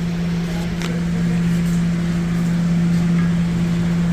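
Steady machine hum, one low even tone with a fainter higher overtone, and a faint click about a second in.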